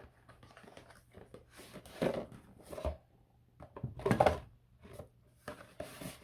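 Paper and plastic packaging rustling and crinkling as a boxed camera grip kit is unpacked, with scattered handling clicks; the loudest rustles come about two and four seconds in.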